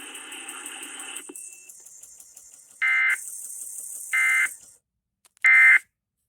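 Three short bursts of Emergency Alert System end-of-message data tones, the warbling SAME code that closes an alert, each about a third of a second long and about 1.3 seconds apart, the last the loudest. Before them a steady noisy background cuts off about a second in.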